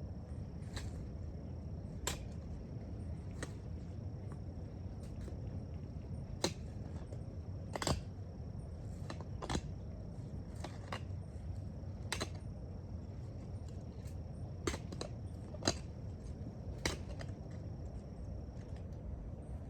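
Irregular sharp knocks and thuds, roughly one every second or so, from hand work in farm soil. A low steady rumble and a thin, steady high whine run underneath.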